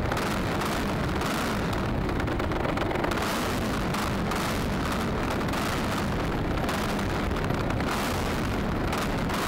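Extra 300 aerobatic plane's propeller engine running steadily while the plane rolls on grass, heard close-up as loud, unbroken engine and propeller noise.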